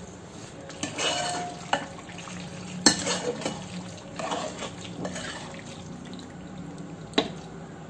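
Steel spoon scraping and clinking against a pressure cooker as thick cooked macaroni is stirred and scooped, with a few sharp clicks, the loudest about three seconds in and another near the end.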